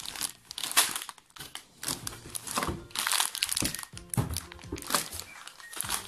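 Clear plastic bags full of small plastic construction-set pieces being picked up and handled, the plastic crinkling in irregular bursts.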